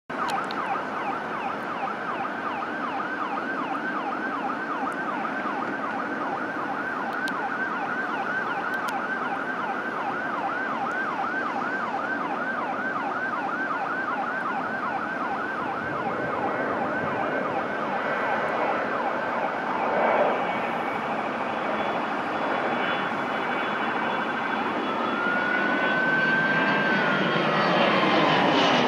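Learjet 35A's twin Garrett TFE731 turbofans at takeoff power, growing louder through the second half as the jet rolls and climbs past, with an engine whine that rises and then falls in pitch near the end. Under the first half runs a repeating siren-like warble, about three or four cycles a second, from an unseen source.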